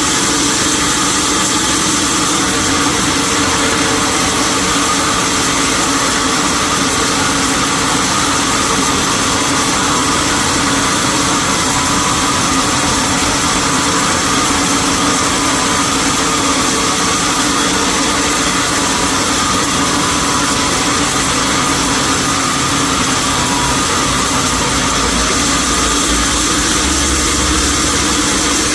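Sawmill machinery running steadily, a loud, even mechanical noise with a constant hum, a lower rumble growing near the end.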